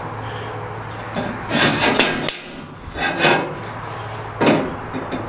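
Metal handling noise as a plasma-cut steel part and a micrometer are worked against the steel table: three bouts of scraping and rubbing, the first the longest, over a steady low hum.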